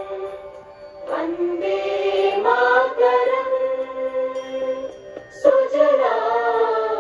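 Music with singing voices, a choir-like sound of long held notes that change pitch every second or so.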